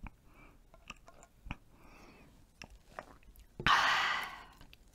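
A person swallowing a drink from a bowl, with faint gulps and small mouth clicks, then a loud breathy exhale with an open mouth about three and a half seconds in, fading away.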